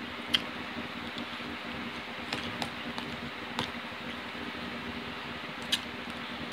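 Eating sounds close to the microphone: about five short, sharp clicks and taps as rice is scooped from a plate with a plastic spoon and eaten, over a steady background hum.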